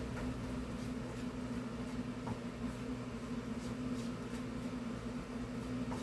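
Kitchen range-hood exhaust fan running with a steady hum, with a few faint light taps of a silicone spatula stirring butter and sugar in a nonstick pan.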